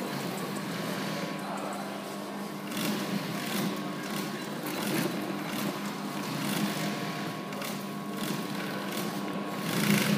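Industrial sewing machine stitching through plush fabric in short runs over a steady motor hum, with the clicking of the needle strokes.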